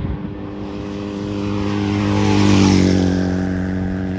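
Airbus A321 jet airliner's engines as it passes close overhead. It swells to its loudest just past the middle, with a whine falling in pitch as it goes by, then eases off.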